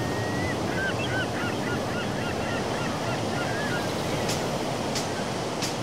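Ocean surf and wind washing steadily, with a flurry of short, chirping bird calls in the first few seconds and a few faint clicks near the end.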